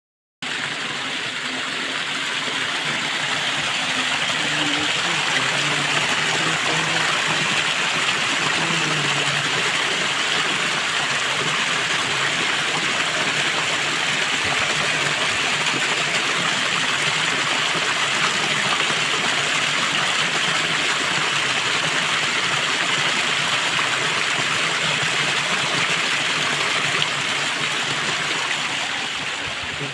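Shallow stream water rushing and splashing over rocks in a small cascade: a steady, even noise.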